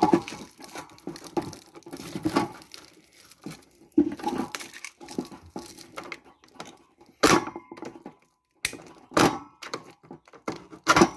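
Paper rustling, then several short puffs of air from a bee smoker's freshly fitted bellows being pumped.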